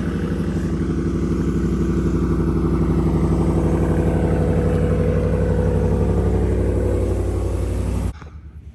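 Ram 1500 pickup's Hemi V8 idling, a steady exhaust note with a fast, even pulse. The sound cuts off abruptly near the end.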